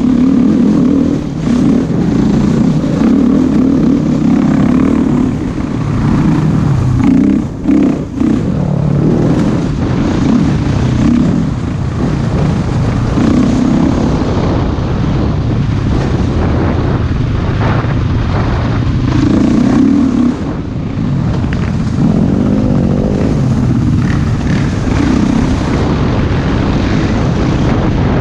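Husqvarna TE510 single-cylinder four-stroke dirt bike engine running hard, revving up and down with the throttle, with brief throttle-offs about eight seconds in and again about twenty seconds in.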